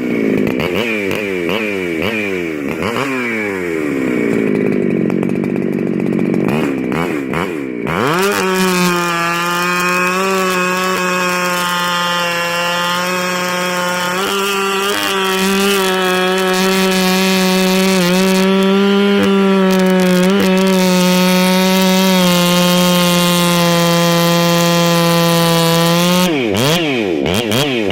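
Husqvarna 395XP two-stroke chainsaw, revved up and down several times, then held at full throttle for about eighteen seconds with small dips in pitch as it works under load, typical of ripping a log on a chainsaw mill. Near the end it drops off full throttle and is blipped again.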